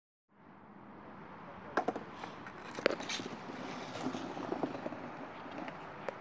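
Skateboard wheels rolling over hard pavement in a steady rumble, with a few sharp clacks of the board about two and three seconds in.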